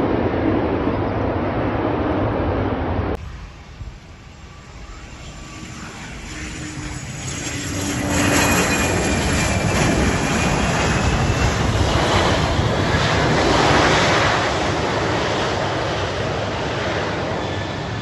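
A twin-engine business jet's engines roar and whine as it lands and rolls past, swelling to their loudest around ten seconds in, with a thin high whine gliding in pitch, then easing off. The opening three seconds hold steady aircraft rumble from another shot, which cuts off abruptly.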